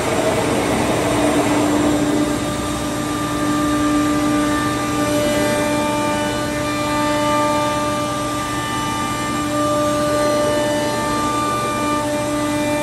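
CNC router spindle running with a steady multi-tone whine while its bit cuts a raised-panel profile into an MDF sheet, over a steady rushing noise. The rushing is louder in the first couple of seconds.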